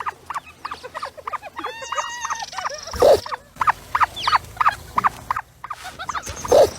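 A small animal squeaking in a rapid run of short, high chirps, with one longer call about two seconds in. Two louder knocks come about three seconds in and near the end.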